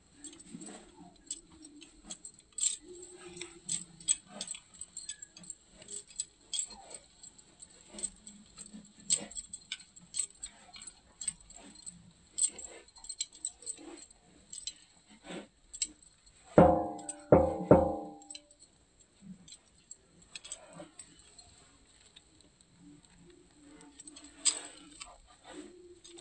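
Cow being milked by hand: irregular short squirts and clicks as the teats are stripped, with bangles clinking on the milker's wrists. A little past halfway, a brief loud pitched call in three short pulses.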